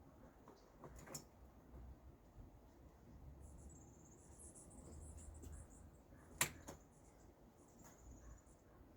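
Near-quiet room with a faint high-pitched chirping trill that comes and goes. There is a small click about a second in and one much louder sharp crack about six and a half seconds in.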